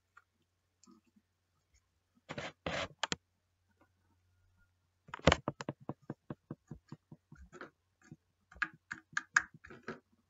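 Slime being squished and poked, giving sharp clicks and pops. There is a short cluster a couple of seconds in, a fast run of clicks about five seconds in that slows as it goes, and another cluster near the end.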